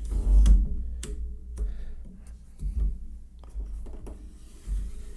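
Aluminum camera tripod being handled and moved on a wooden tabletop: low thumps of its feet on the wood and a few short clicks and knocks from its legs and column, the loudest thump about half a second in.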